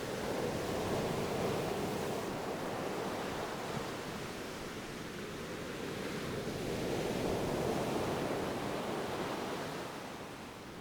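Ocean waves washing on a shore, a steady surf hiss that swells twice, about a second in and again about seven seconds in.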